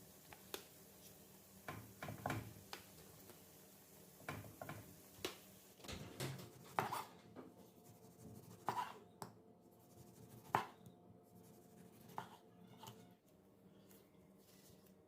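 Light, irregular knocks and clicks of kitchen utensils and dishes being handled, about a dozen spread out, the loudest near the middle.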